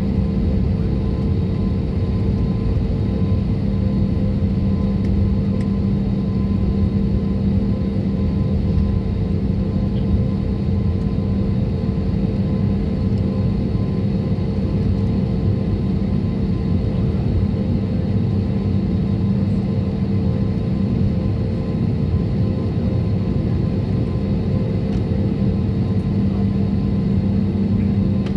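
Airliner cabin noise: the jet engines running steadily, heard from inside the cabin as an even rumble with a constant hum.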